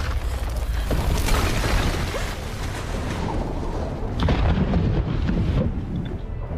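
Movie sound effects: a deep rumbling of explosions, with a sharp crash about four seconds in.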